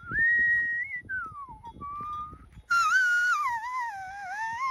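A Maasai herder whistling to his cattle to calm them. First a steady high note, then a falling glide and a short lower note, then a louder, wavering whistle that starts a little past halfway and carries on.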